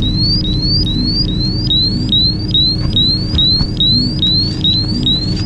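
Electronic alarm beeping over and over in short rising chirps, a little over two a second, set off by fumes venting from the open tank hatch. A steady low hum runs underneath.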